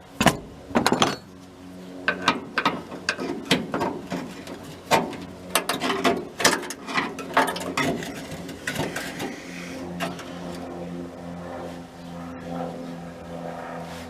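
Irregular sharp metallic clicks and knocks of hand tools working at the lower door hinge mount of a split-window VW bus, dense for most of the stretch and thinning out near the end, over a steady low hum.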